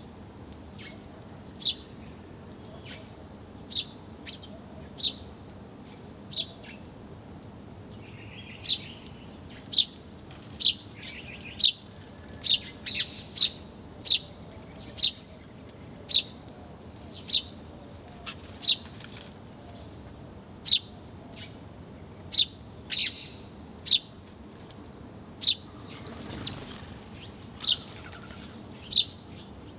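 Birds chirping: short, sharp high calls repeated about once a second, over a steady low background hiss.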